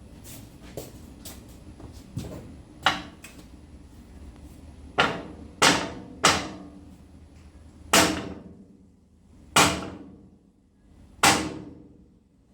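Sledgehammer striking the bent metal tongue of a John Deere lawn cart to straighten it. About seven heavy blows land one to two seconds apart, each ringing briefly.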